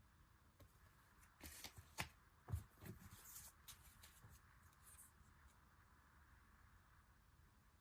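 Faint rustling and a few light taps of paper or card goods and their packaging being handled, from about a second and a half in until about five and a half seconds in.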